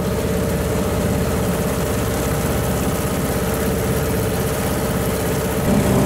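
Dinghy outboard motor running steadily, getting a little louder near the end.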